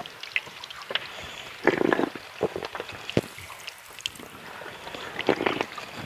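Water splashing and dripping, with scattered sharp clicks and knocks and a short louder splash about two seconds in.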